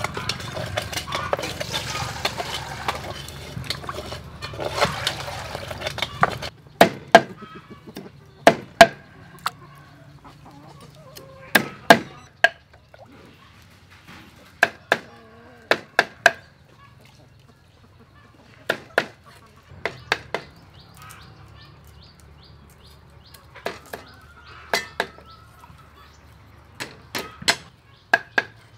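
Cleaver blade knocking down onto a round wooden chopping board as shrimp are cut, in sharp single knocks and short clusters at irregular intervals. For the first six seconds or so a busier mix of clinks and handling sounds, with chickens clucking, stands in place of the chopping.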